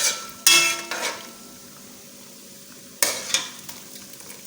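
Metal cookware clanking: a cooking pot and its lid or a metal spoon striking it, in three sharp clanks with brief ringing, at the start, about half a second in and about three seconds in.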